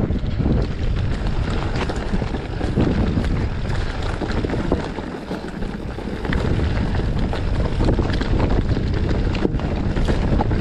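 Wind buffeting the camera microphone along with rattling and crunching from a mountain bike moving over a rough dirt trail. The noise eases briefly about halfway through.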